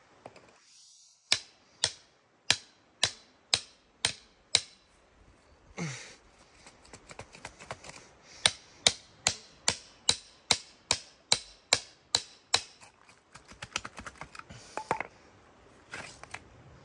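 Rock hammer striking a bedrock-breaking chisel driven into cracks in creek bedrock. It lands six sharp blows about two-thirds of a second apart, then after a short break a faster run of about three blows a second, and lighter taps near the end.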